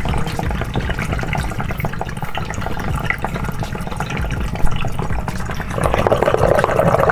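Water bubbling steadily in a glass water pipe as vapor is drawn through it from a vaporizer hose. The bubbling gets louder near the end.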